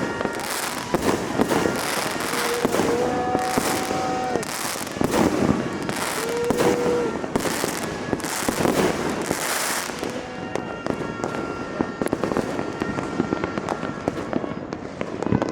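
Many household fireworks and firecrackers popping and crackling without pause. Louder bursts of crackle come about once a second, thinning slightly in the last few seconds.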